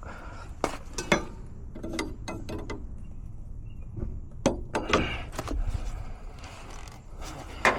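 Irregular metallic clicks and clanks of hand tools being handled at a refrigerant line, about nine sharp knocks spread unevenly, the loudest near the end.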